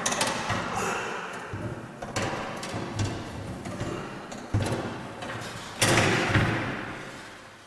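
Metal housing of a Cadet 240-volt heater knocking and clunking against its steel ceiling mounting bracket as it is fitted into place. There are about four separate clunks, each dying away over a moment, with the loudest one near the end.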